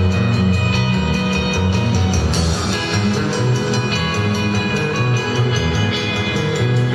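Rock band playing live: electric bass, electric guitars and a drum kit in an instrumental passage before the vocals come in.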